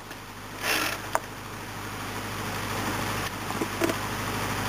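Steel wire rope being pulled by hand through a Tirfor winch: a short rasp about a second in, a sharp click just after, and a few light clicks later, over a low rumble that grows louder.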